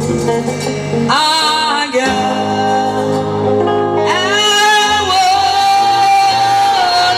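A woman singing gospel into a microphone over sustained keyboard chords, sliding up into two long held notes, the second held with vibrato for about three seconds.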